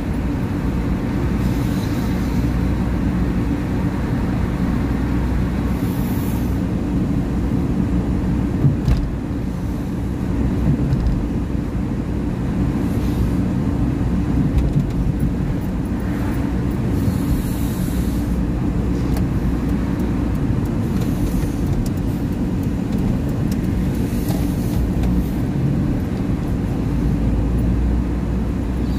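Car driving on a suburban road: a steady low rumble of engine and tyre noise, heard from inside the car. Brief hissing swells come and go a few times.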